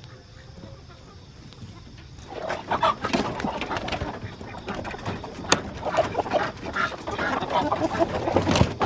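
Chickens clucking inside a wooden coop, starting about two seconds in and growing louder as its plywood hatch is worked open, with one sharp click from the hatch near the middle.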